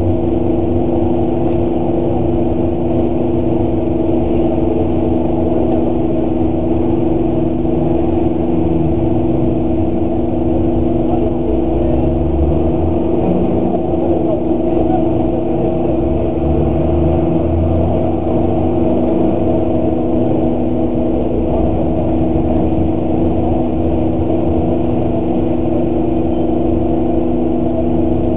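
Bus engine idling steadily, heard from inside the cab as an even hum that does not change.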